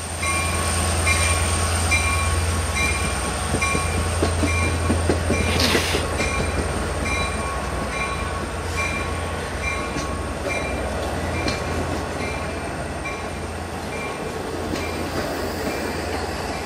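An LIRR passenger train of C3 bi-level cars, hauled by a DE30AC diesel-electric locomotive, pulling out past the platform, with a steady low rumble and the clatter of steel wheels on the rails. A short high ding repeats about twice a second throughout, and a brief hiss comes about six seconds in.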